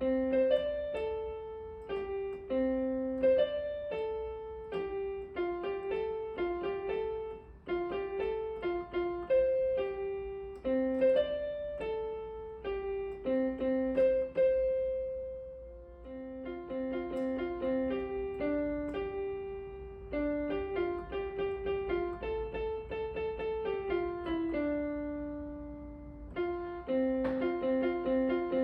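Background piano music: a gentle melody of single struck notes over a simple accompaniment, with a brief lull about halfway through.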